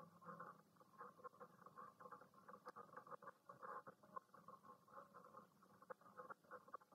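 Faint graphite pencil scratching on drawing paper in quick, irregular short strokes while sketching.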